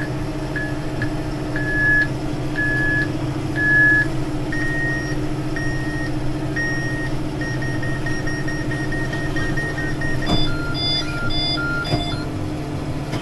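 Baler control-terminal beeping in a tractor cab over the steady drone of the Deutz-Fahr 6175 TTV: the beeps are evenly spaced at first, turn quick and rapid about seven seconds in, and change to a lower, different-toned pattern near the end. The McHale Fusion3 Plus is signalling that the bale chamber is nearly full and it is time to stop for netting.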